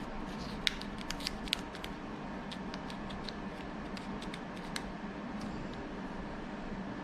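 Small sharp clicks and light scraping of a thin UHMW plastic bushing being worked into the bore of a wooden wheel: a quick cluster of clicks about a second in, then scattered lighter ticks, over a steady low hum.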